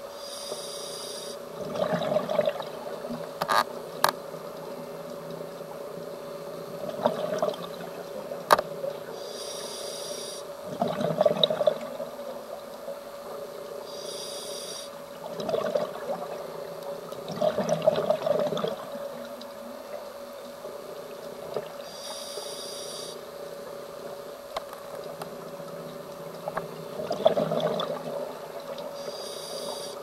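A scuba diver breathing through an open-circuit regulator underwater: a hiss on each inhale, then a burst of bubbles on each exhale, every several seconds, over a steady hum. A few sharp clicks near the start.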